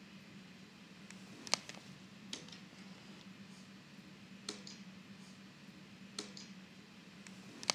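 Fingertip taps on Cozmo's plastic light cubes: about five short, sharp clicks a second or two apart, over a faint steady low hum.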